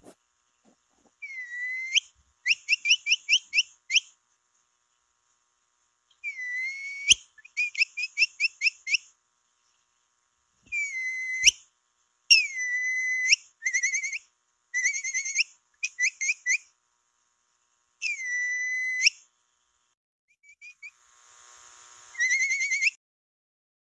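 Capybara whistle calls repeated in bouts of a second or two: some single drawn-out whistles that dip and then rise sharply, others quick runs of short whistles, about six a second, with short silences between bouts.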